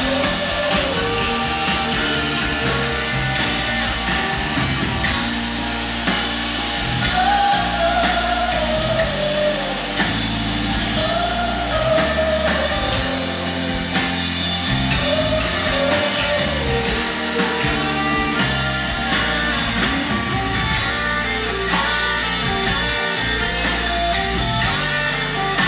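A live rock band playing with drums, guitars, violin and saxophone, and voices singing long notes that rise and fall every few seconds over the band, with the crowd in the room.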